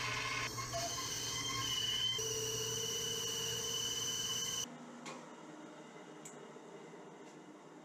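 Bandsaw cutting a sapele board to rough shape: a steady machine whine with a high tone that steps up in pitch about two seconds in. About two-thirds of the way through it drops sharply to a much quieter hum with a couple of faint clicks.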